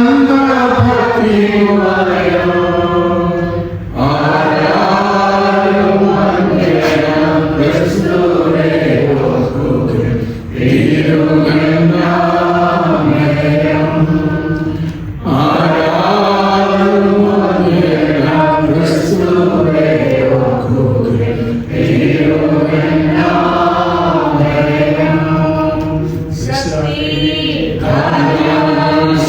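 Singing of a slow Malayalam hymn, in long, held phrases that break for a breath about every five or six seconds.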